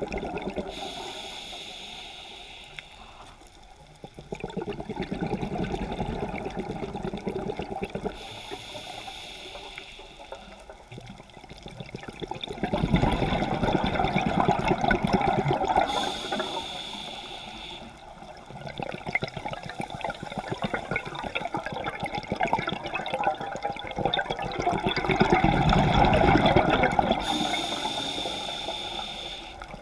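Scuba diver breathing through a regulator underwater: a short hissing inhale followed by a longer, louder rush of exhaled bubbles, repeating about every eight seconds.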